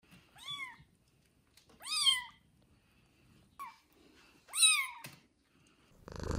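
Newborn kittens mewing: four thin, high-pitched cries, each rising and then falling in pitch, the third short. A louder steady sound sets in just before the end.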